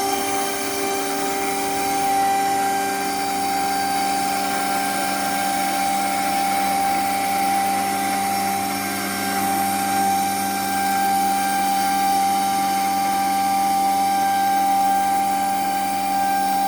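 CNC router spindle running at a steady speed with a high, constant whine while a V-bit engraves a picture into wood.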